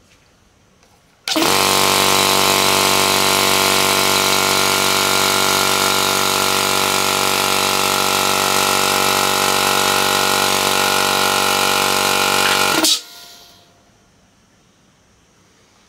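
Air compressor, its seized pump freshly refilled with oil, switching on and running at a steady pitch for about eleven seconds, then cutting off suddenly.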